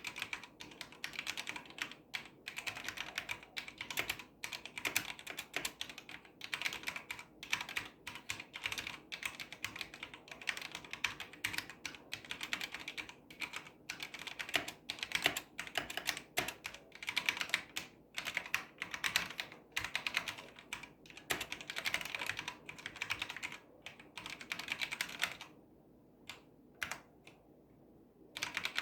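Typing on a HyperX Alloy FPS RGB mechanical keyboard with Kailh Silver Speed linear switches: fast, continuous keystroke clacking. It pauses for a couple of seconds near the end, with only a few lone key presses, then picks up again.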